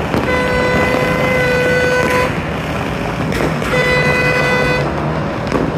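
A horn blowing two long blasts, the first about two seconds and the second about a second, over a continuous din of distant fireworks and firecrackers across the city.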